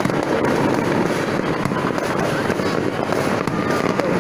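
Distant fireworks and firecrackers going off in a dense, continuous barrage, countless bangs and crackles blending into a steady din.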